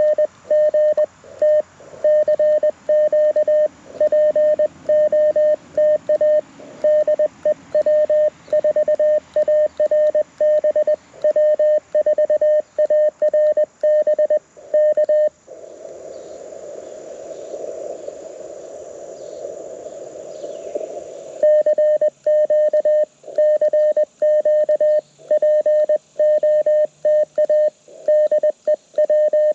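Morse code sidetone from an LNR Precision Mountain Topper MTR4B QRP CW transceiver, played through a small portable speaker, as the operator keys with paddles: a single steady beep tone keyed in dits and dahs. About halfway through, the keying stops for about six seconds and the receiver's narrow-filtered band hiss comes up, then the keying resumes.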